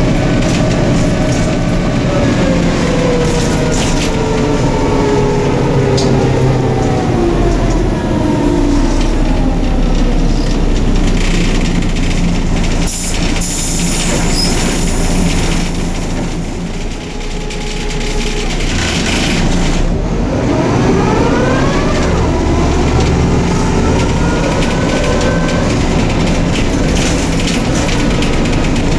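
Neoplan/ΕΛΒΟ N4007 city bus heard from inside the passenger cabin. Its drivetrain whine falls in pitch as the bus slows, settles while it waits at a red light with a short hiss near the middle, then rises in pitch again as the bus pulls away and accelerates.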